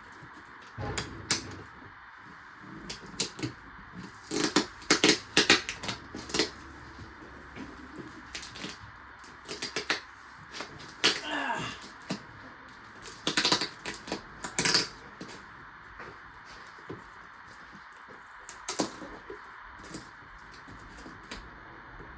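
A cardboard box sealed with packing tape being cut and opened: sharp crackles, snaps and scrapes come in irregular bursts, busiest in the middle, with steady hiss behind them.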